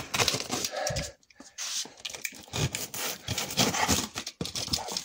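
A cardboard shipping box being opened by hand: a plastic packing strap pulled off and the cardboard flaps scraping and rustling, in an irregular string of scrapes with a short pause about a second in.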